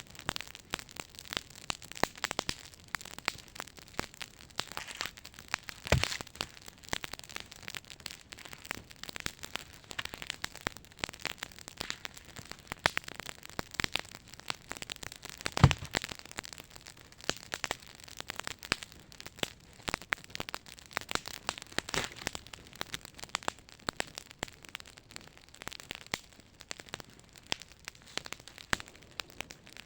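Wood campfire of spruce branches and birch burning, crackling with many sharp snaps. Two much louder cracks stand out, about six seconds in and again near sixteen seconds.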